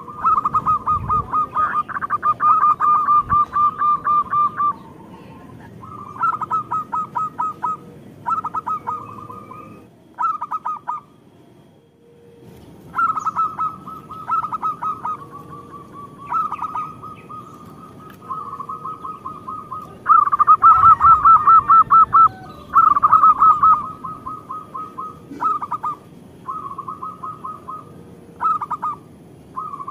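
Zebra dove (local perkutut) singing its staccato cooing song: repeated bouts of rapid, evenly pulsed notes, each bout lasting from under a second to a few seconds. Short pauses fall between the bouts, with a longer pause about eleven seconds in.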